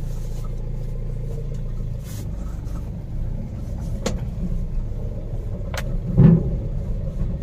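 Mahindra Bolero pickup driving, its engine and tyres a steady low rumble heard from inside the cab. Two sharp clicks come past the middle, and a louder thump about six seconds in.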